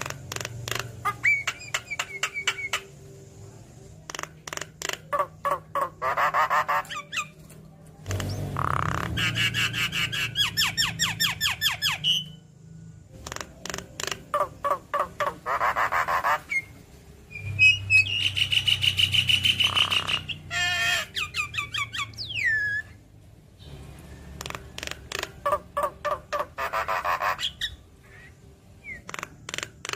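Javan myna singing a long, varied song: rapid runs of repeated notes, a held high whistle and curving whistles, in phrases broken by short pauses.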